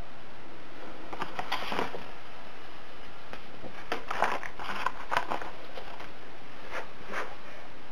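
Paper instruction sheets rustling and crackling as they are handled and moved aside, in a few short bursts over a steady background hiss.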